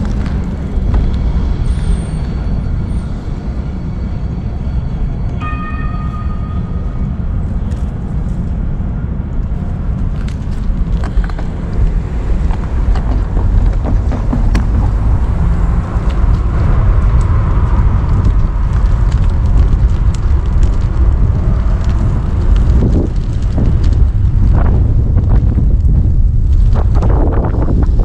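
Wind buffeting the microphone over steady road and traffic rumble while riding, getting louder about halfway through. A short pitched tone sounds about five seconds in.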